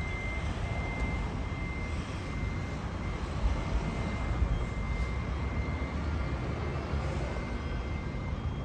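Scania K440 coach's 13-litre straight-six diesel running as the double-decker drives off, a low steady rumble. A thin high-pitched tone runs over it, fading in and out.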